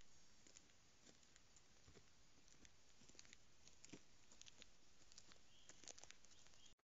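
Faint scattered crackles and ticks of a deer's hooves stepping through dry leaf litter and twigs, over the steady hiss of a trail camera's microphone.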